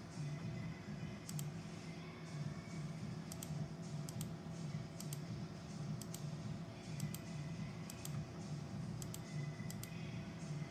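Sharp clicks, mostly in close pairs, coming about once a second over a steady low hum.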